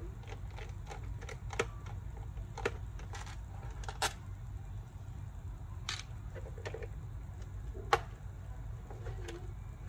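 Irregular small clicks and taps of a screwdriver and tiny screws while the screws of a laptop's case are being taken out, with a handful of sharper clicks among many faint ticks.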